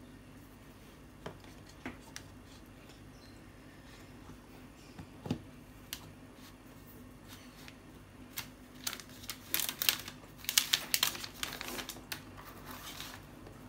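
A few light taps, then a soft thump as a tablet is set down into its cardboard box. After that comes a dense run of crinkling from thin clear plastic packaging film, loudest in the last few seconds.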